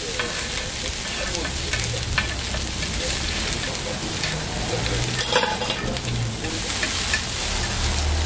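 Pork belly, bean sprouts, egg and sausage sizzling steadily on a hot flat steel griddle, with metal tongs and a spatula clicking and scraping on the steel now and then; the sharpest clack comes about five seconds in.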